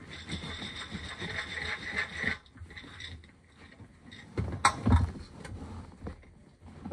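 Popcorn kernels rattling inside a glass mason jar as the jar is shaken and turned over. About four to five seconds in come a sharp knock and a few low thumps as the jar is handled.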